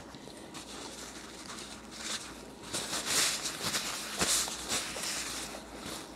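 Quiet chewing, then a paper napkin rustling and crinkling in the hands as it is pulled out and unfolded, starting about two seconds in.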